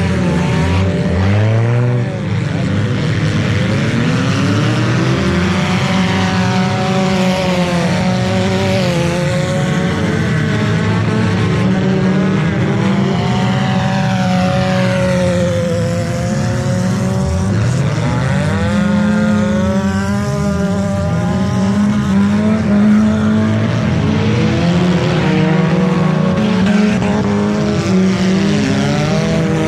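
Engines of several junk cars racing around a dirt track, overlapping, revving up and falling off as the cars pass and corner.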